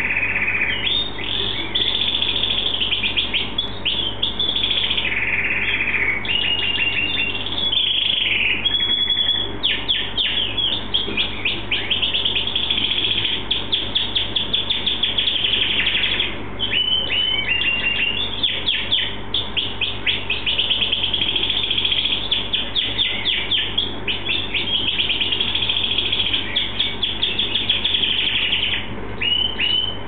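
American Singing canary singing a long, nearly continuous song of rapid trills and repeated high chirps, with only brief breaks.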